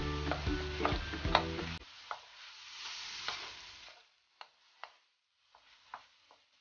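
Wooden spoon stirring diced beef offal frying in a stainless steel wok: a sizzle with sharp clacks and scrapes of the spoon against the pan. Background music stops about two seconds in; the sizzle dies away about four seconds in, leaving a few separate knocks of the spoon.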